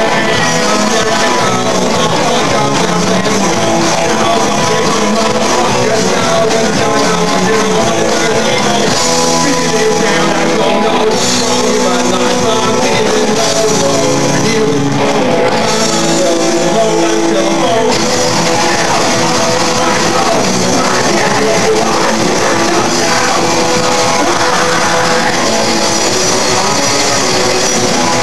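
A live band plays loudly and without a break, with electric guitars and drums.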